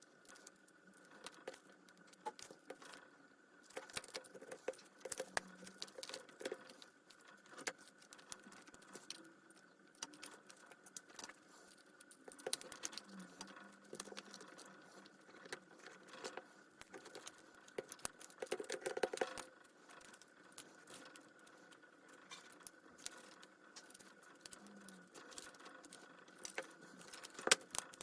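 Scattered light clicks and clinks of small hard parts being handled and set down, irregular throughout, with a few louder clusters, over a faint steady tone.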